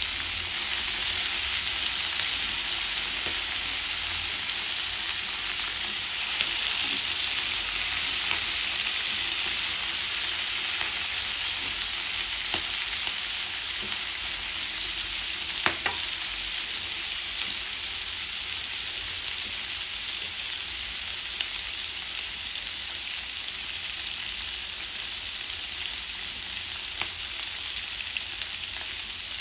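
Sliced green vegetables sizzling steadily in a hot oiled frying pan, stirred with a spatula that clicks against the pan now and then, most sharply about halfway through. The sizzle eases a little toward the end as the stirring stops.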